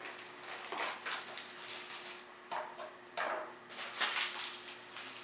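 Brown paper and tape wrapping of a fishing rod package crinkling and tearing as it is pulled open by hand, in several short bursts.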